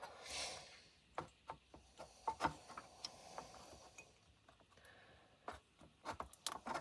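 Faint scattered clicks, taps and light rubbing from hands handling a circuit board and its capacitor leads, with a brief soft hiss near the start.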